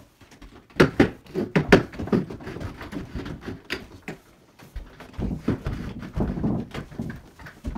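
Knocks, bumps and scrapes of a tall melamine-faced chipboard wardrobe carcass being shuffled across the floor and pushed into place against the wall. There is a cluster of sharp knocks about a second in, then rougher scraping and bumping.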